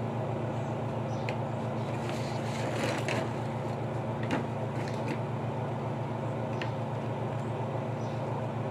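Praxis Twintub 10 kg twin-tub washing machine running steadily with a low hum, its cycle under way. A few faint ticks are heard over it.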